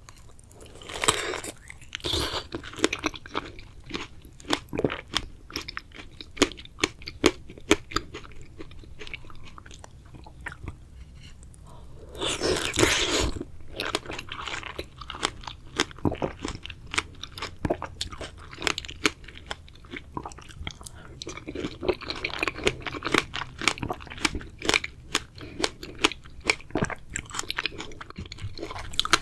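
Strawberries being eaten close to the microphone: wet bites and chewing with many small mouth clicks. Louder bites come about a second in, near the middle and again in the last third.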